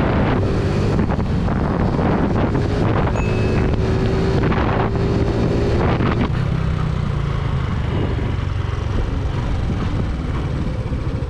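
Motorcycle riding at speed with heavy wind noise on the microphone over the steady drone of the engine. About six seconds in the wind noise drops away, leaving mostly the engine's low drone.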